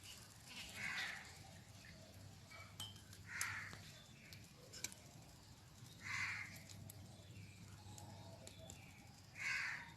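An animal call repeated four times, about three seconds apart, over a faint steady hum.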